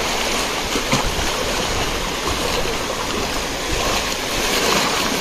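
Sea surf washing on the shore: a steady, unbroken rushing of water.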